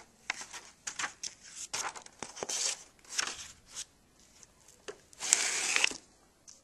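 Hardcover picture book being handled: pages turned and the book closed, a run of short papery rustles and swishes, with one longer, louder rustle about five seconds in as the books are moved.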